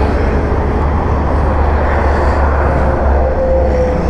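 Steady low rumble of wind on the microphone mixed with road traffic going by, with a faint engine tone sliding slightly lower near the end.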